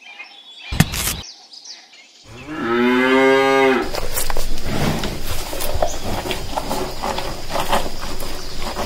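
Cow mooing: one drawn-out moo about a second and a half long, after a sharp click. Then a steady crackling, rustling noise takes over.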